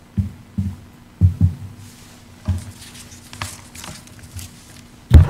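Handling noise at a lectern, picked up by the microphone mounted on it: a series of dull bumps as things are set down and moved on the lectern, some paper rustling in the middle, and a louder thump near the end.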